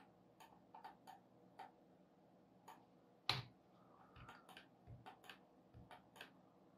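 Faint, irregular clicks of a computer mouse and keyboard, about a dozen short clicks spread over several seconds, one a little louder about a third of the way in.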